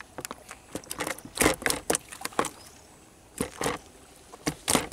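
A tilapia flopping in a clear plastic tub, its body and tail slapping the plastic in irregular runs of sharp taps and knocks.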